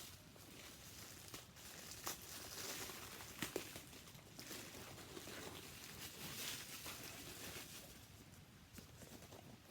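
A shipping package being opened by hand: packaging crinkling and tearing in uneven swells, with a few sharp snaps about two and three and a half seconds in.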